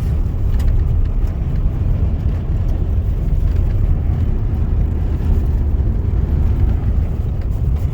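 Truck driving along a road, heard from inside the cab: a steady low rumble of engine and road noise.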